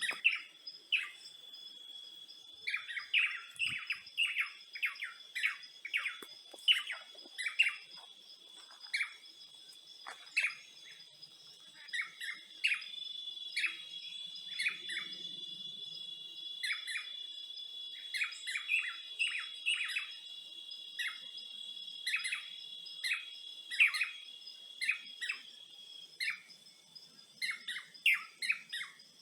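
Birds chirping in many short, quick calls, over steady high-pitched insect trilling.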